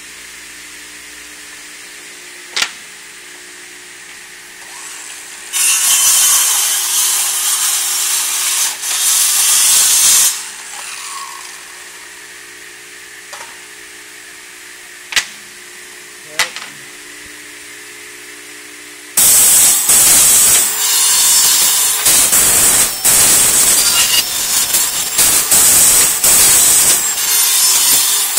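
Double-head mitre saw at work: a steady hum with a few sharp clicks, about five seconds of loud hissing, then from about two-thirds of the way in the blades cutting through a profile, loud and uneven.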